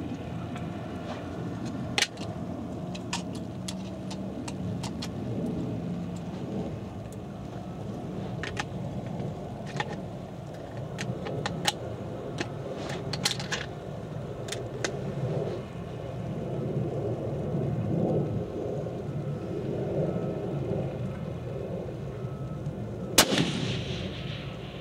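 Rifle shot near the end, a sharp crack with a short ring after it, the loudest thing heard; a lighter sharp crack about two seconds in and scattered faint clicks, over a steady low rumble.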